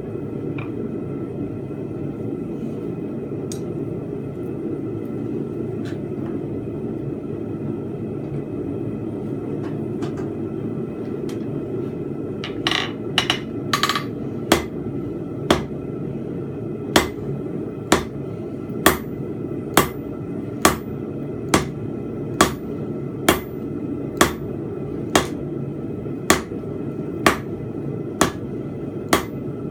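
2 lb rounding hammer striking hot steel while forging a fence peg, ringing blows about once a second that start about halfway through, over a steady low background noise.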